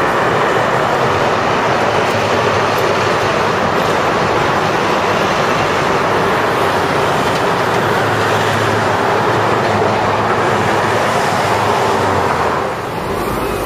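Loud, steady ride noise from inside a moving road vehicle in city traffic, with a steady low hum under it; it eases off somewhat near the end.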